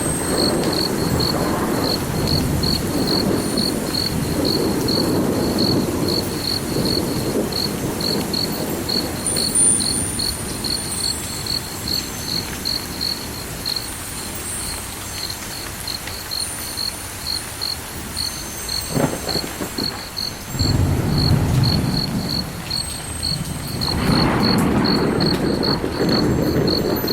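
A cricket chirping in an even, steady rhythm, a high pulsed trill that never stops, over a low rumbling that swells and fades, dies down in the middle and rises again near the end.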